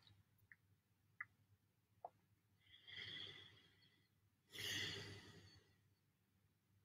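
A man breathing out slowly twice, faint sighing exhalations about three and five seconds in, with a few soft clicks before them.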